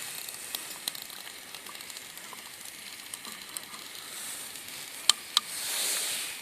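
A steel Crusader mug of soup sizzling and hissing as it heats on a camping stove, with small ticks throughout. Two sharp clicks come about five seconds in, followed by a brief swell of hiss.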